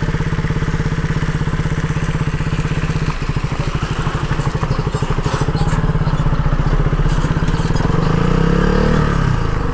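KTM RC 200's single-cylinder engine running steadily as the motorcycle rides over a rough dirt road, with a brief rise and fall in pitch near the end.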